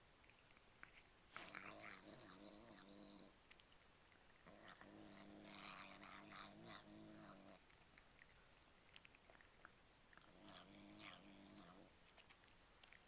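Domestic cat growling while eating cat treats: three drawn-out low, steady growls of a couple of seconds each, the middle one the longest, with chewing clicks between them.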